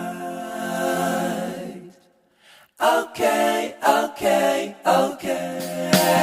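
Background a cappella vocal music: voices singing in harmony, held notes for the first two seconds, a brief gap, then a run of short rhythmic sung syllables.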